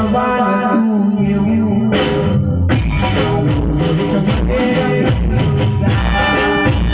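Live Gujarati folk song through a loud PA: a man singing over dhol drumming and accompanying instruments. The low beat drops out under a long held note near the start, and the full rhythm comes back about three seconds in.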